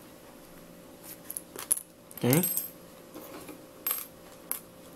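A few small, sharp metallic clicks and ticks from an iPhone's ejected SIM card tray and SIM card being handled during a SIM swap.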